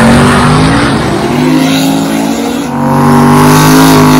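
Drag car's engine revving hard and held at high revs, its pitch climbing and then holding steady, dipping briefly about two-thirds of the way through before settling on a new steady note.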